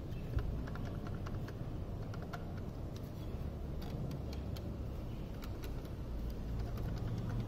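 Royal Enfield Himalayan instrument console (speedometer cluster) being shaken by hand: a scatter of light, irregular plastic clicks and rattles that come faster near the end. The rattle comes from something loose inside the console, the instrument-panel rattle the owner is tracking down.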